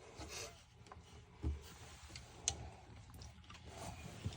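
Faint handling sounds as a spring-loaded bus window latch is worked with a pick: a few scattered light clicks and taps of small metal parts.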